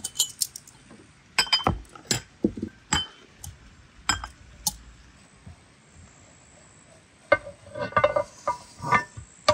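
Clinks and knocks of a heavy iron pan and metal utensils being handled and set down on a table, a string of sharp separate strikes. Near the end a denser run of scrapes and knocks as the pan is tipped to slide the baked pastry out onto a plate.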